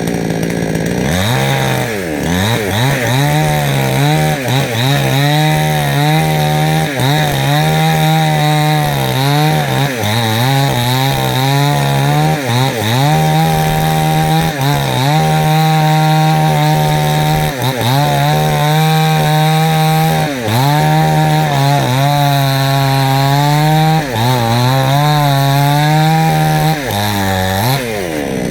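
Two-stroke chainsaw cutting into jackfruit wood at high revs. Its pitch dips again and again as the chain loads up in the cut, then recovers, with a deeper drop near the end.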